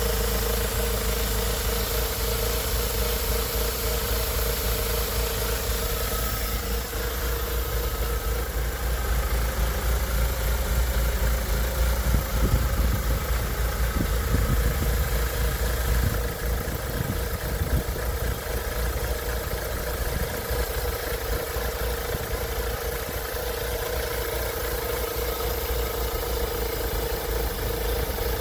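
BMW Z3 1.9's M44 four-cylinder engine idling steadily, with a steady tone over the idle. The car has a vacuum leak.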